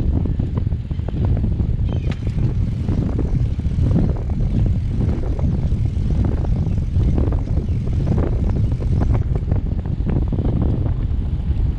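Riding noise from a moving bicycle: wind buffeting the microphone of the bike-mounted camera as a loud, fluttering low rumble, with tyres rolling on asphalt and small clicks and rattles from the bike.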